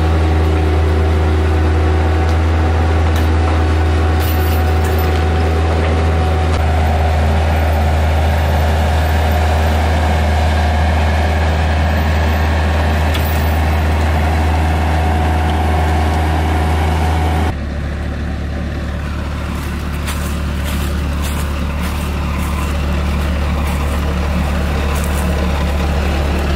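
Bobcat S175 skid-steer loader's diesel engine running steadily under load as it drags a felled tree on a chain. About two-thirds of the way through the engine sound changes abruptly to a slightly quieter, rougher note, which then slowly gets louder.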